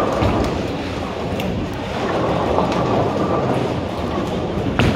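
Bowling balls rolling down the lanes, a steady low rumble, with one sharp clack near the end.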